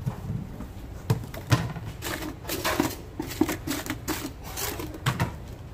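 Clatter and knocks of dishes and utensils as a plate of food is made up. There are scattered sharp knocks and a quicker run of knocks in the middle.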